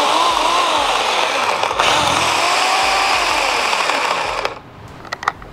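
Craftsman 14-inch 8-amp corded electric chainsaw (CMECS614) running free with the trigger held, motor and chain whirring steadily, then released about four and a half seconds in so that it stops, with a couple of faint clicks after.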